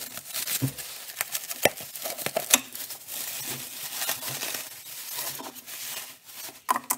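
Clear plastic wrapping being torn and crumpled by hand as it is pulled off a large turbocharger: a continuous crinkling with many sharp crackles.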